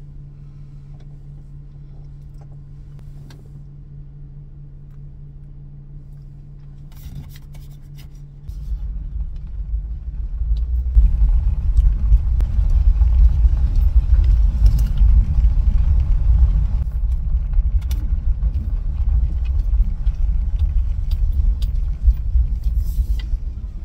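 Car engine idling steadily, heard from inside the cabin. About eight seconds in, after a few faint clicks, the car gets under way and a loud, low rumble of engine and road noise from driving takes over.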